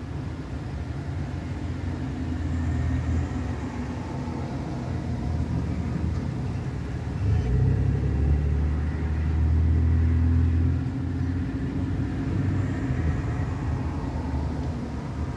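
Low, steady rumble of a running motor vehicle, swelling louder for a few seconds about halfway through.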